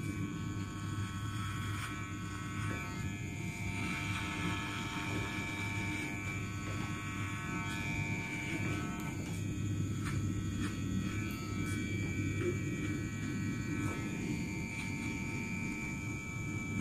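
Electric hair clippers buzzing steadily as they cut the lowest band of hair at the side of the head with no guard fitted.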